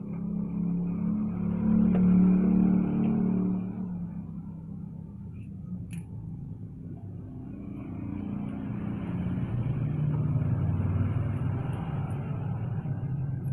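Engine running and revved twice: it rises in pitch and level about two seconds in, drops back, then rises again from about nine seconds in. There is a single sharp click around six seconds in.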